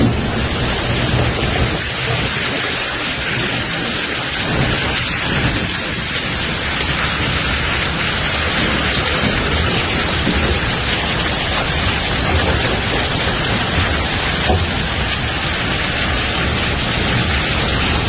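Hailstorm: hail and heavy rain pelting down in a loud, steady hiss, with a low rumble underneath.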